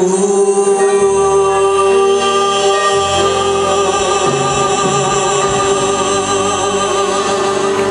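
Live vocal group singing a love ballad, holding one long sustained note over backing chords that shift beneath it, as the song closes.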